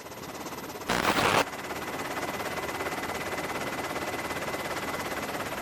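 Rapid gunfire: a loud half-second blast about a second in, then a steady stream of very fast fire that fades near the end.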